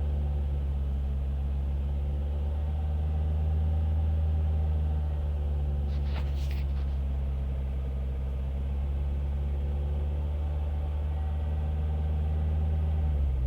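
Ford Fiesta ST150's 2.0-litre four-cylinder engine running at steady, constant revs with a low, even drone. About six seconds in there is a brief hissing rattle, and the engine note falls away at the very end.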